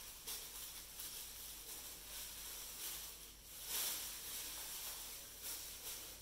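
Thin plastic bag being handled, rustling and crinkling softly, a little louder about three and a half seconds in.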